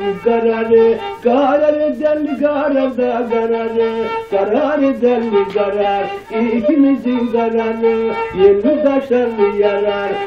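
Turkish folk music: a single melody line in long, ornamented held notes, phrased in breaths about every three to four seconds, with no words made out.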